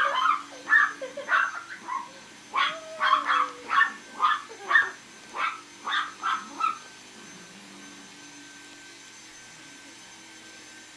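A dog barking in a quick run of short, high yaps, about two a second, that stops about seven seconds in, leaving only a faint steady hum.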